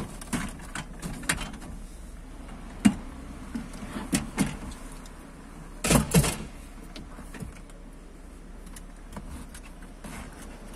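Knocks and clatter of a manual wheelchair's metal frame and parts being handled and taken apart inside a car. There is a sharp knock about three seconds in and two loud knocks close together about six seconds in.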